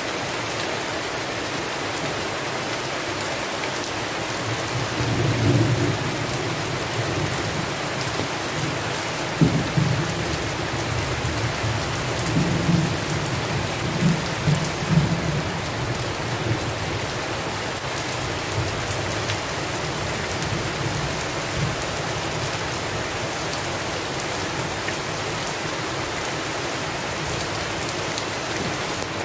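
Steady heavy rain falling, with thunder: a low rumble about five seconds in, a sharp crack near ten seconds, then a few more rolling rumbles before the rain carries on alone.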